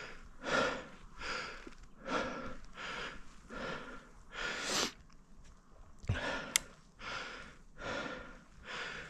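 A person breathing hard and rhythmically, each breath in or out a short noisy swell about every three-quarters of a second. There is one sharp click about two-thirds of the way through.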